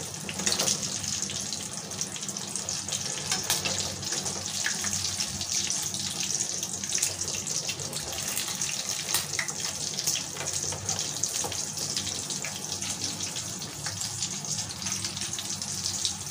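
Bone-in beef pieces deep-frying in hot oil on high heat in a kadai: a steady sizzle with scattered crackles and pops.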